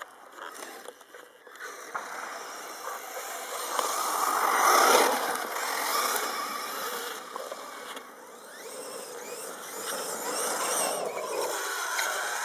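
RC8 1/8-scale buggy driven by a Castle Mamba Monster brushless motor, its motor whining as it speeds up and slows down, with the tyres scrabbling and throwing gravel and sand; loudest about five seconds in.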